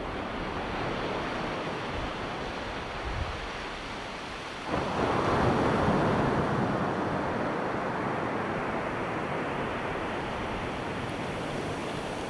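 Atlantic ocean surf: waves washing steadily on the beach, with one wave breaking suddenly about a third of the way through and its wash slowly fading.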